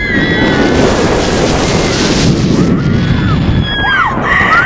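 Wind rushing over the microphone as a Gerstlauer roller coaster races along at speed, with riders screaming near the end.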